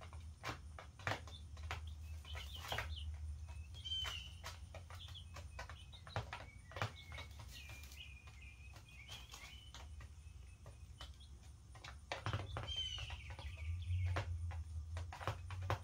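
Young chicks, a couple of weeks old, peeping in short calls that slide downward, in small clusters every few seconds. Scattered clicks and taps run through it, over a steady low hum.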